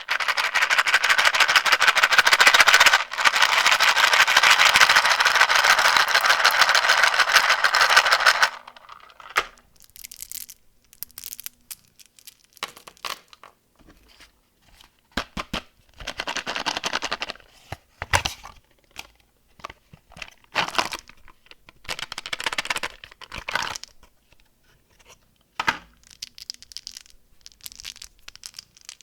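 Candy wrapper being torn open and crinkled. It crackles densely for about eight seconds, with a short break about three seconds in, then comes in brief scattered bursts of crinkling.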